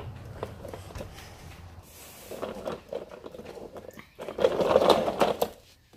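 Rustling and scraping handling noise as plush toys are moved about by hand, loudest for about a second near the end.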